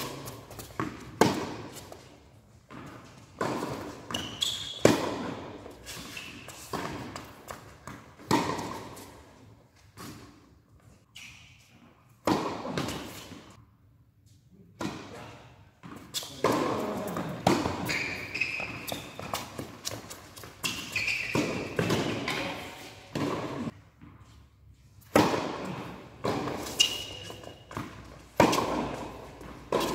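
Tennis balls being struck by rackets and bouncing on an indoor hard court during rallies, a string of sharp hits that echo around a large hall, with short quiet spells between points.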